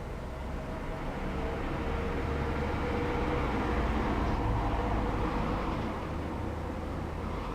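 A passing road vehicle: a low rumble that builds over a couple of seconds, peaks midway and fades again.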